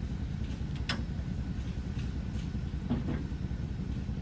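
Vehicle engine running steadily with a low rumble, with a couple of light knocks or rattles.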